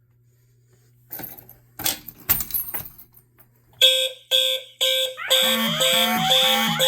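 A low steady hum with a few clicks and knocks, then about four seconds in a bank of fire alarm horns and horn-strobes starts sounding in March-time code, short on-off pulses about twice a second. About a second later more appliances join with warbling, temporal and sweeping tones, including one slowly rising whoop, so that many alarm signals sound at once.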